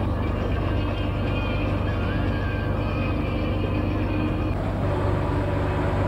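Truck engine running steadily while driving, a constant low drone heard from inside the cab. Its tone shifts slightly about four and a half seconds in.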